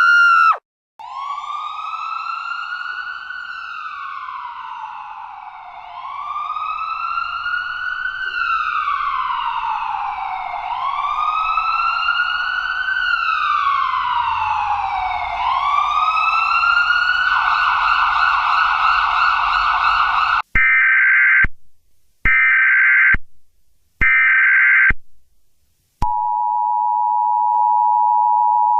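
A siren wailing, rising and falling about every five seconds. Near the end it gives way to three short raspy bursts of Emergency Alert System data tones (the SAME header), then the steady two-tone EAS attention signal.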